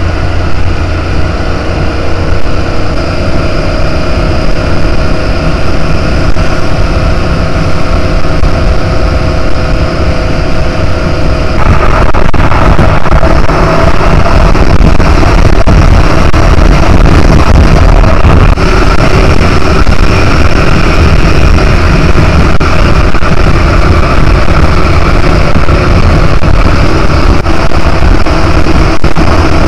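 Motorcycle riding at speed: steady engine note under heavy wind rush on the microphone, becoming louder and fuller about twelve seconds in.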